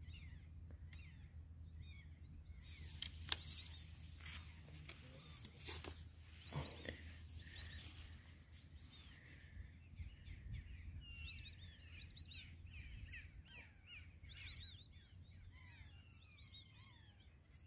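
Faint outdoor ambience with a steady low rumble and a few scattered clicks. From about ten seconds in, many small birds chirp, thickening towards the end.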